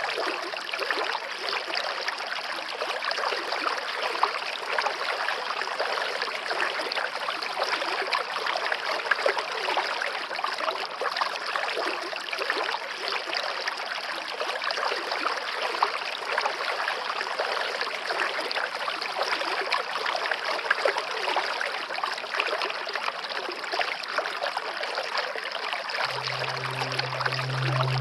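Waterfall's steady rushing and splashing of falling water, even and unbroken. Near the end a low steady hum comes in underneath.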